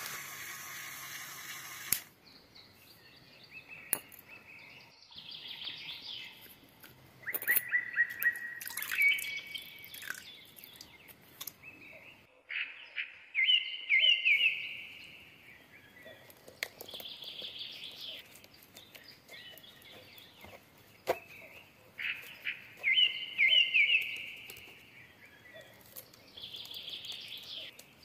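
Small electric motor of a toy concrete mixer whirring, cutting off about two seconds in. Then bird song: short chirping phrases repeated every four or five seconds, with a few faint clicks between them.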